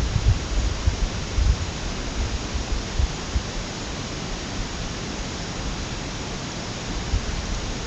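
Outdoor ambience: a steady rushing hiss, with wind buffeting the microphone in irregular low rumbles.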